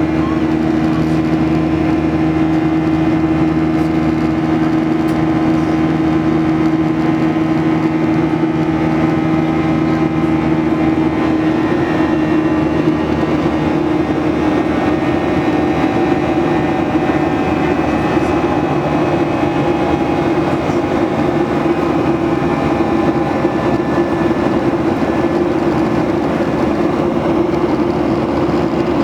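Boeing 737-800's CFM56-7B jet engines heard from inside the cabin: a loud, steady drone with several humming tones. About 11 seconds in, the lower hum fades and the sound turns rougher and more rushing.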